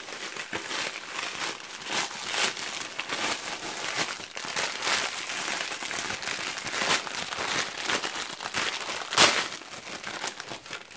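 Clear plastic packaging bag crinkling and crackling as it is handled and pulled open by hand, in a dense run of short crackles with one sharp, loud crackle about nine seconds in.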